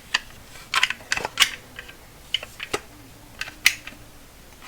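A caulking gun and caulk tube being handled: irregular light clicks and knocks of hard items, quiet after about four seconds in.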